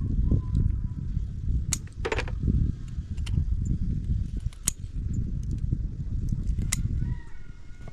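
Low, uneven wind rumble on the microphone, with scattered sharp clicks and taps.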